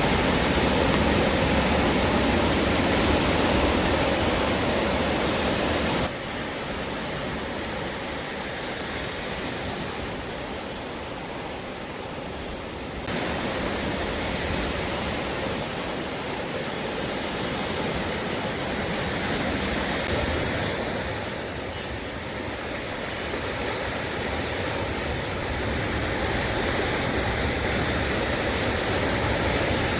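Sea waves washing and breaking on the shore as a continuous rush of surf. The level drops abruptly about six seconds in, then swells again later.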